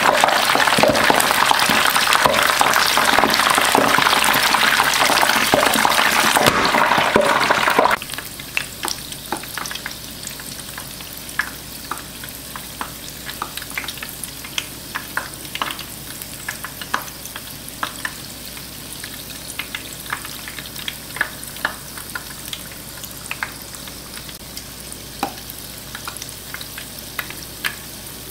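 Jamaican fried dumplings deep-frying in the oil of a DeLonghi Roto deep fryer. The pale, freshly dropped dough bubbles loud and dense at first. About eight seconds in this drops suddenly to a quieter steady sizzle with scattered sharp pops and crackles as the dumplings turn golden.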